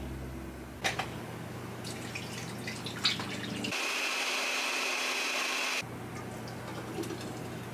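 A few clicks and knocks, then a countertop blender runs for about two seconds with a high whir and cuts off sharply. A thick blended drink is then poured from the blender jug into a glass jar.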